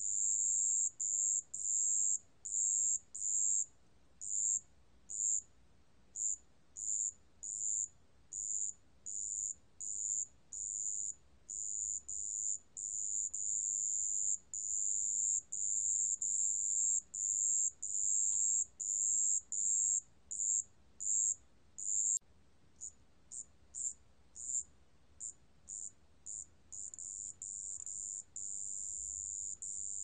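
Wetland bell cricket (습지방울벌레) singing at 27 °C: a clear, high, single-pitched ringing chirp repeated a little more than once a second. Near the end the chirps grow shorter and closer together, then run into one continuous trill.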